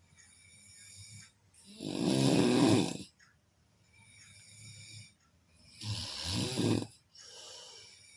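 A person snoring in sleep: two loud snores about four seconds apart, with quieter hissing breaths between them.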